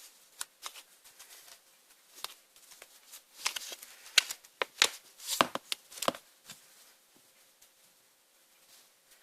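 Hands squeezing and poking a slime mixed with crushed magic-sponge pieces, making a run of sticky clicks, pops and crackles. The sounds fade to near quiet for the last two seconds or so.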